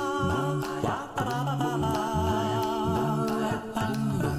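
Music: held melody notes over a repeating bass pattern.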